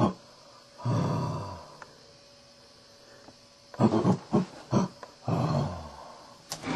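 Gorilla-like roars and grunts. A drawn-out roar comes about a second in, a quick run of about five grunts near four seconds, a second drawn-out roar just after, and a short grunt near the end.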